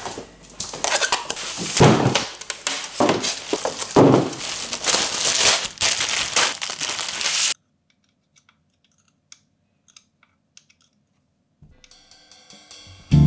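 Loud, irregular crinkling and tearing of packaging being handled, which cuts off abruptly a little past halfway. A few faint clicks follow.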